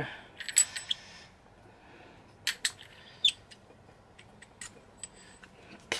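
Steel transfer-case parts on a Toyota RF1A shaft clicking and clinking against each other as a piece is worked on the shaft by hand: a few sharp separate clicks with quiet stretches between.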